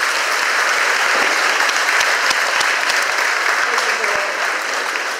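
A large audience applauding steadily, a dense wash of clapping with voices mixed in.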